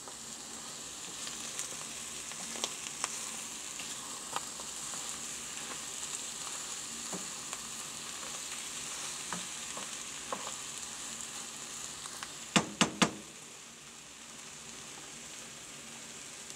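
Morels, eggs and green onion sizzling in a frying pan as a wooden spatula stirs them, with scattered light clicks and scrapes. Three sharp knocks in quick succession about three-quarters of the way through.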